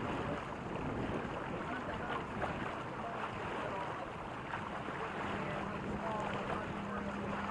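Wind buffeting the microphone over the rush and gurgle of water along the hulls of a Reynolds 21 catamaran under sail. A low steady hum joins about five seconds in.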